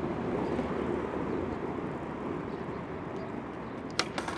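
Steady low rumble of downtown city noise, with a few sharp clicks close together near the end.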